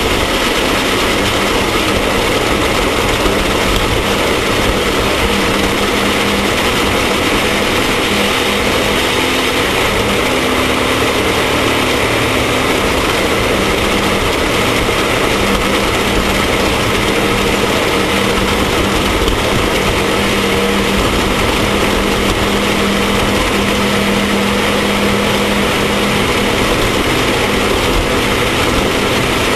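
Off-road race vehicle's engine running loud and steady, holding one even drone over a dense wash of mechanical and road noise.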